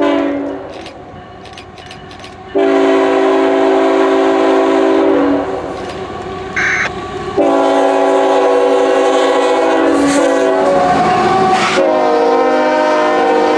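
Air horn of a CSX Tier 4 GEVO (GE ET44AH) freight locomotive sounding long blasts as it approaches: one about two and a half seconds in, and another from about seven seconds that drops in pitch as the locomotive passes and holds to the end. Autorack freight cars rumble by on the rails beneath it.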